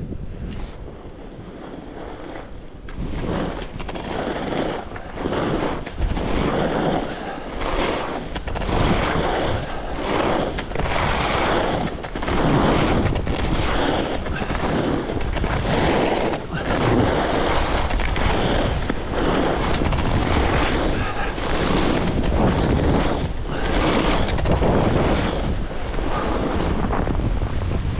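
Skis carving linked turns on groomed corduroy under a few inches of fresh snow: a swelling hiss and scrape of edges on snow about once a second, growing louder a few seconds in, over wind rushing on the microphone.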